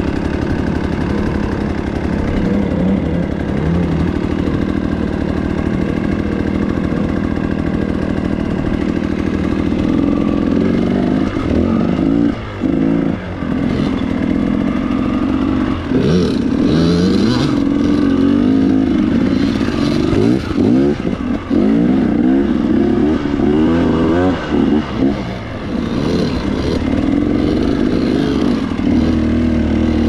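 Dirt bike engine running steadily at first. From about ten seconds in, its revs rise and fall again and again, with several brief throttle-offs, as the bike picks its way down a rough, rocky trail.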